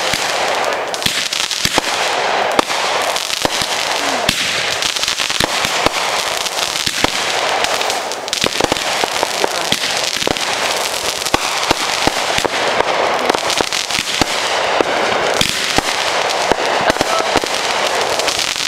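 Fireworks going off in a dense, continuous barrage: rapid sharp reports over constant crackling, with no pause.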